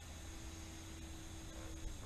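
Faint, steady hum of a small electric RC airplane's motor flying far off, under a low hiss and rumble; the hum drops out just before the end.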